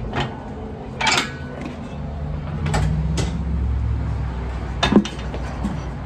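Tire being remounted on its wheel at a tire changer: metal clanks and knocks, the loudest near the end, over a low motor hum that swells through the middle.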